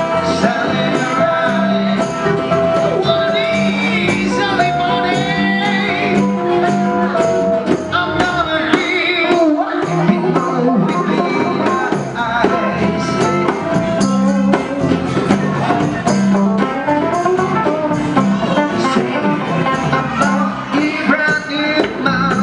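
A live band jamming: a harmonica playing long, bending lead notes over strummed acoustic guitar, electric guitar and bass, with hand drums keeping a steady beat.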